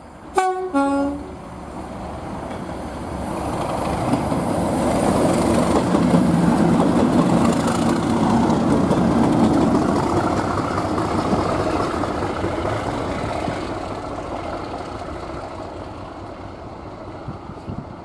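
Pair of Class 37 diesel locomotives sounding a two-tone horn, a short high note then a low note, about half a second in. The locomotives then pass, their English Electric V12 diesel engines and wheels rumbling louder to a peak midway and fading away as they recede.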